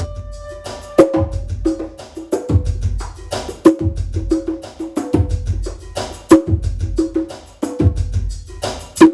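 Small drums played with the hands in quick, uneven patterns of sharp strokes, several a second with heavier accents, the heads ringing briefly at a low pitch. The drumming runs over a lounge-style backing track with a deep bass line.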